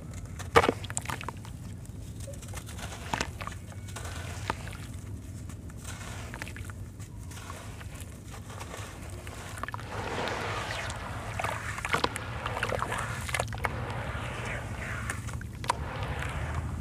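Wet sand-cement blocks crunching and crumbling as hands squeeze them in a plastic tub of cement water. There are sharp crunches early on. From about ten seconds in comes denser sloshing and splashing as the hands knead the soaked mush under water.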